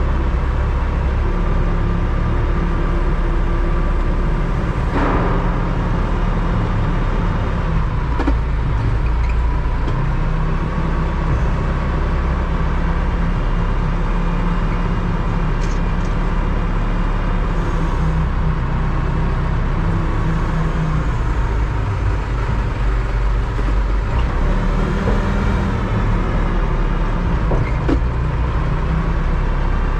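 A motor vehicle running on the move, with a steady low engine rumble and a fainter whine that slowly rises and falls. A few brief knocks and rattles come through, the clearest about five seconds in.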